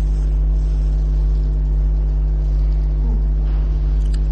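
Loud, steady electrical hum from the sound system: a low drone with a stack of evenly spaced overtones, unchanging throughout.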